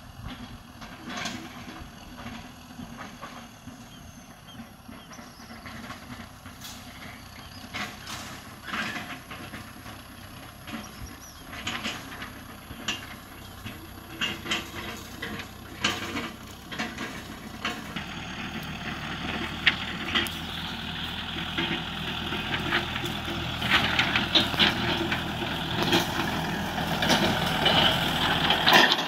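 Kubota M6040SU tractor's diesel engine running as the tractor drives closer, growing steadily louder, with scattered sharp clicks and knocks.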